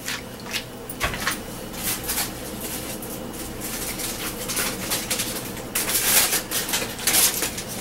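Aluminium foil being pulled out and crinkled by hand: an irregular run of crackles, loudest about six to seven seconds in.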